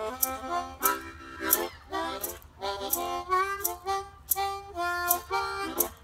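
Harmonica cupped in the hands, playing a blues instrumental break of short rhythmic notes and a few held ones, some sliding in pitch. Under it runs a steady beat of sharp ticks, about one and a half a second.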